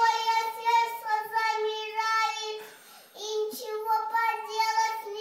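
A toddler girl singing in a high voice, holding long notes with a short break about three seconds in.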